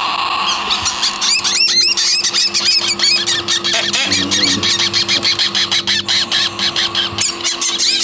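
Parrot chicks giving rapid, repeated high squealing begging calls, several a second, starting about a second in. A steady low hum runs underneath.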